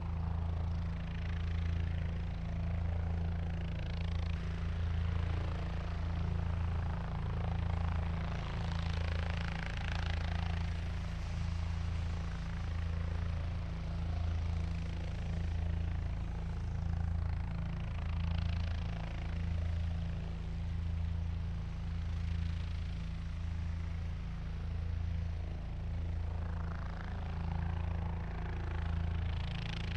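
Helicopter in flight: a steady low rotor throb pulsing evenly about once a second, under a rushing hiss that swells and fades every few seconds.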